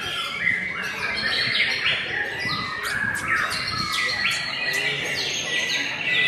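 White-rumped shama (murai batu) singing a fast, varied song of whistles, chirps and trills in quick phrases.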